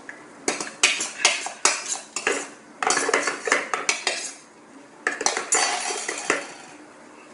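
Spoons clinking and scraping against plates as children eat, a quick run of clatter that pauses briefly in the middle and stops about a second before the end.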